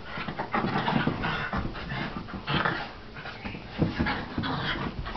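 Dogs panting and scuffling together, a rough, irregular run of breaths and short noisy bursts.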